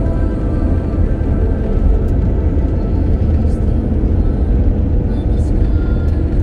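Steady low rumble of a car's tyres and engine driving on a snowy highway, heard from inside the moving car. The tail of background music fades out in the first second.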